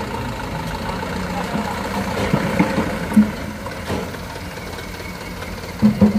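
A light dump truck's diesel engine runs steadily as the truck moves slowly past close by, with a few short knocks along the way.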